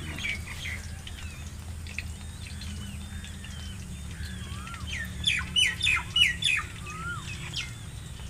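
Several birds calling and chirping, with short sweeping calls throughout. A run of about five louder, sharp calls comes about two-thirds of the way through. A steady low hum runs underneath.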